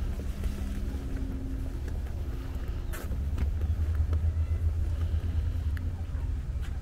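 Wind buffeting the microphone outdoors, a low, unsteady rumble, with a single sharp tap about three seconds in.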